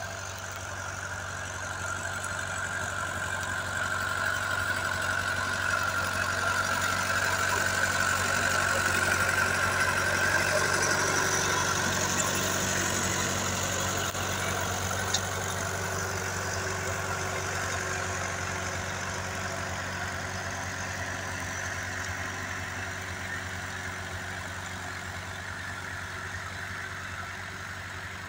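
Fordson Major tractor engine running steadily under load as it pulls a two-furrow plough through the soil, getting louder as it draws near and then fading as it pulls away. A single short click sounds about halfway through.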